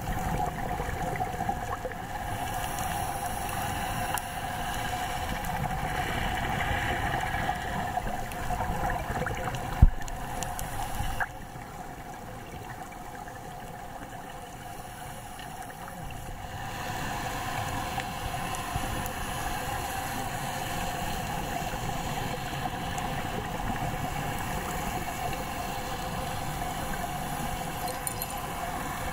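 Underwater ambience picked up through a camera's waterproof housing: a steady drone of boat motors carried through the water, with watery hiss and gurgle. A single sharp knock comes about ten seconds in, and the sound turns quieter for a few seconds in the middle.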